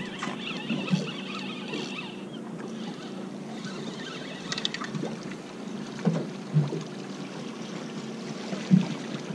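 Fishing reel being cranked as a tail-hooked bonito is brought up and splashes at the surface beside a small boat, over steady water and boat noise, with a few short dull knocks in the second half.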